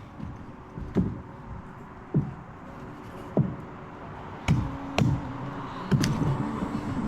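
A series of sharp knocks, about one a second at first and coming closer together near the end, over a low background rumble.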